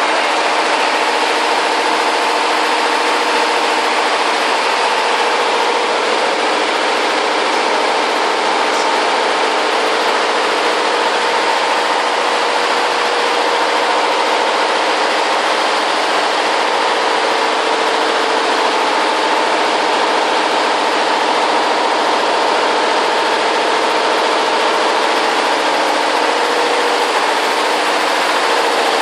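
Multi-head computerized embroidery machine running at high speed, its needle heads stitching together in a loud, steady mechanical din with a constant hum.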